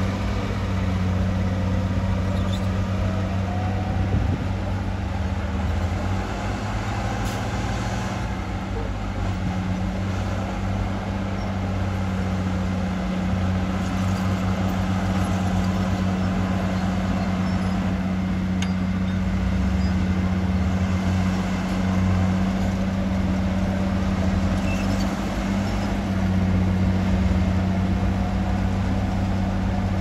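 Heavy earthmoving machine's diesel engine running steadily at an even pitch, with a few faint clicks.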